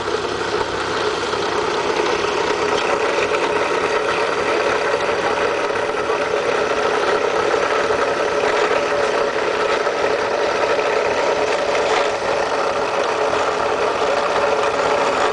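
Electric winch on an off-road vehicle running steadily under load while pulling, a steady mechanical drone over the vehicle's running engine.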